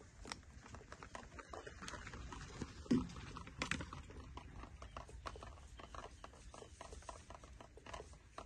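Small wet pats, splashes and rubbing as hands scrub two baby monkeys sitting in a plastic basin of water, a quick irregular run of little knocks with one louder bump about three seconds in.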